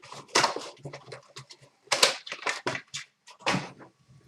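Hockey card pack wrappers being torn open and crinkled by hand, in a few irregular crackling bursts, the strongest about half a second, two seconds and three and a half seconds in.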